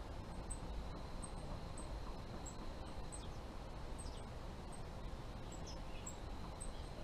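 Evening riverside ambience: a steady low rumble with a small high chirp repeating roughly every half second, and a few short calls from birds.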